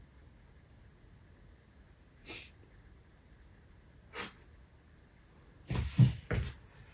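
A man breathing out sharply in short bursts while straining through bodybuilding poses: single puffs about two seconds apart, then a louder cluster of breaths and movement noise near the end.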